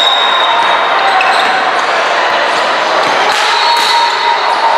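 Youth basketball game in a gym: a basketball bouncing on the court over a steady din of voices from players and spectators.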